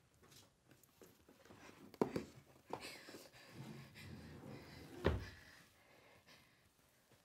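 Hands rummaging at a wooden dresser: rustling and shifting of objects, with two knocks, the louder and deeper one about five seconds in.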